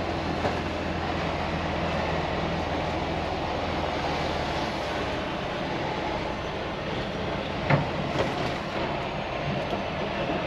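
Semi-truck diesel engine and cab rattle heard from inside a Freightliner Cascadia's cab as the loaded tractor-trailer creeps onto a truck scale. The low engine hum eases about halfway through, and a sharp clunk comes about three-quarters of the way in, followed by a smaller one.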